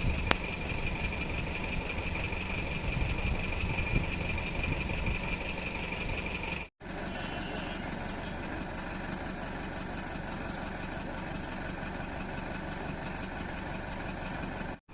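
Steady engine rumble of an idling vehicle, with a steady high whine over it in the first half. The sound cuts out briefly about halfway through, then the rumble goes on.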